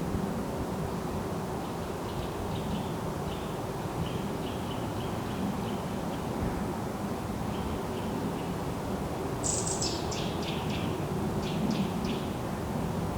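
Forest ambience: small birds chirping faintly over a steady low background rumble. A louder series of quick, high bird notes starts about nine and a half seconds in, the first falling from a very high pitch, and another short series follows near the end.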